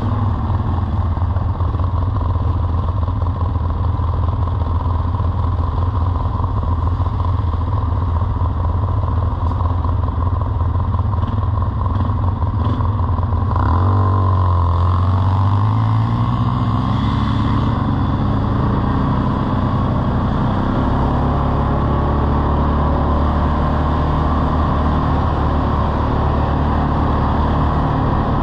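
ATV engine running under way over rough gravel. About halfway through its pitch drops briefly, then climbs as it speeds up, and it runs on steadily at a higher pitch.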